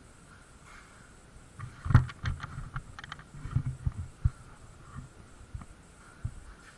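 A quick run of sharp knocks and clicks with low thumps, the loudest about two seconds in, then a few scattered thumps.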